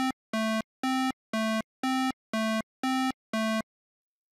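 Synthesized hi-lo police siren: about eight short electronic tones alternating between a higher and a lower note, two a second, stopping about three and a half seconds in.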